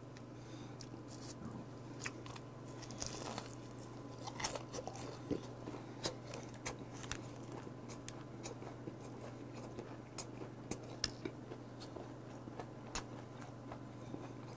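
A man chewing a mouthful of spicy flame-grilled squid close to the microphone: soft wet chewing with many small sharp clicks. A steady low hum runs underneath.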